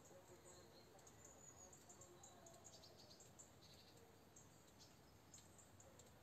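Near silence: quiet room tone with faint, scattered high chirps in the background.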